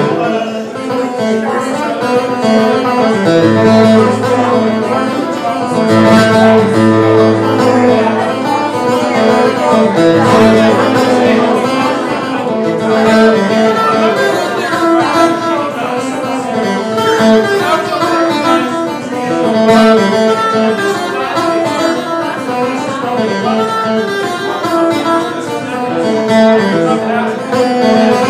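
Live instrumental music: acoustic guitar picking and strumming over a stage-piano keyboard, with held low bass notes from the keys for several seconds near the start.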